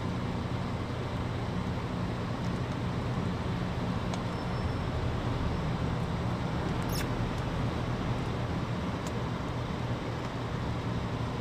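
Steady background rumble of road traffic, with a few faint clicks.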